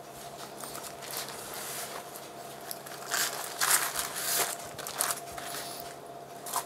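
Baking paper rustling and crinkling as it is handled to roll puff pastry around a filling in a metal baking tray. The rustling comes in denser bursts around the middle.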